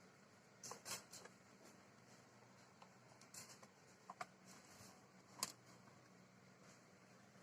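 Near silence over a faint low hum, broken by a few small, quiet clicks and taps.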